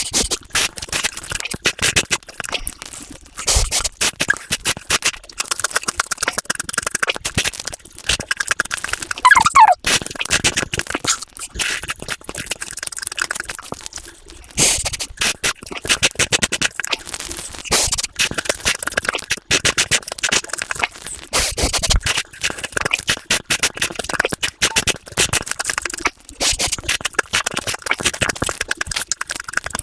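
Close-miked eating sounds sped up to several times normal speed: chewing and crunching of food become a dense, continuous run of rapid clicks and crackles.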